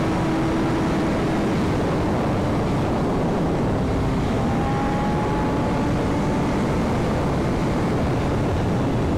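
Wind rushing over the microphone of a riding motorcycle, with a BMW S1000RR's inline-four engine running at a steady cruise underneath; the engine note holds nearly constant, with no revving or gear changes.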